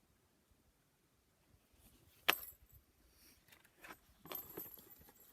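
A sharp click about two seconds in, followed by a few lighter clicks and a short rustling clatter with a faint metallic ring.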